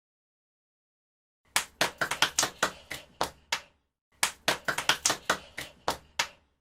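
Hands clapping in two quick, uneven runs of about a dozen claps each, with a short pause between, starting about a second and a half in.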